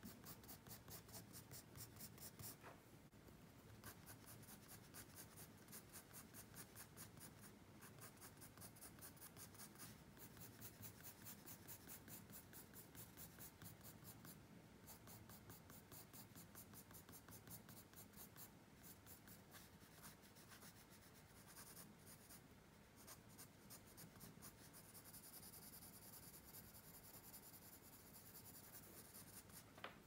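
Faint pencil scratching on paper in rapid, even shading strokes, several a second, with short pauses now and then.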